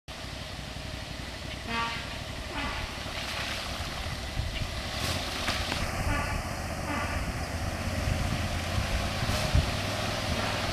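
Trombone notes played a few hundred yards away: a few short blasts, two near the start and two more around the middle. Under them runs the steady drone of a six-wheeled Max amphibious ATV's engine as it drives through pond water.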